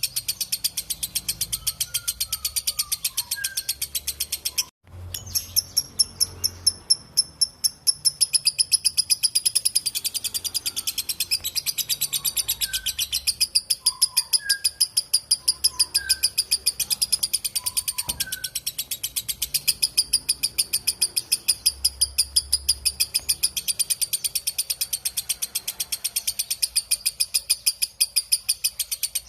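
Lovebird giving its long chattering trill (ngekek panjang): a rapid, unbroken run of high, shrill repeated notes that breaks off briefly about five seconds in and then picks up again.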